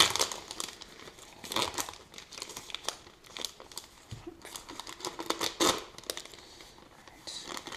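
Chocolate bar wrapper, a paper sleeve and a foil inner wrapper, being ripped open and crinkled by hand in a series of irregular tears and rustles.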